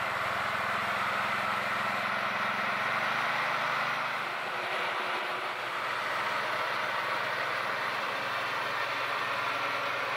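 Motorised coconut grater, driven by a small petrol engine, running steadily as coconut meat is fed in and shredded: a low engine hum under an even grinding whirr, easing slightly midway.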